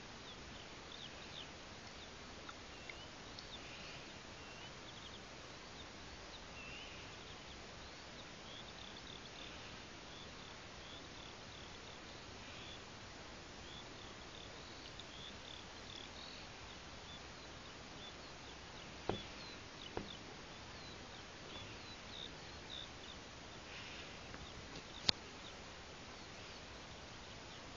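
Outdoor ambience: a steady faint hiss with many short, high-pitched chirps scattered throughout, and a few sharp clicks in the second half.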